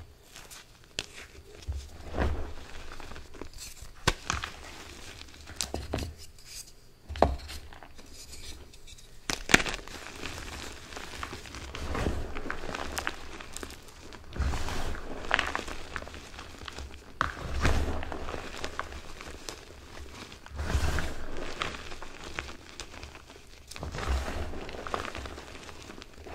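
Bare hands crushing, squeezing and raking crumbly pink and purple gym chalk reforms and loose chalk powder in a pan: uneven soft crunching and gritty rustling with occasional sharp crackles, and dull thumps as the palms press down.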